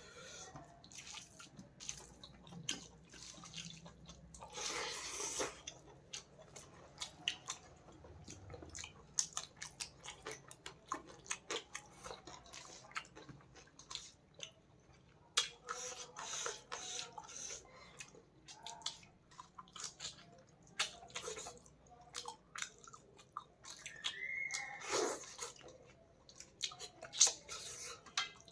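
Close-up eating sounds of a person chewing fish and rice: many small mouth clicks and smacks, with two louder bursts about five seconds in and near the end.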